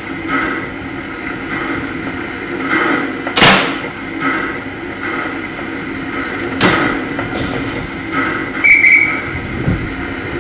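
Heavy doors of vintage slam-door railway carriages slamming shut twice, then a guard's whistle blown briefly near the end, over the steady noise of a standing train.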